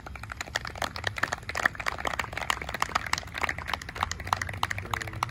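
Applause from a small audience: many separate hand claps, starting right away and keeping on.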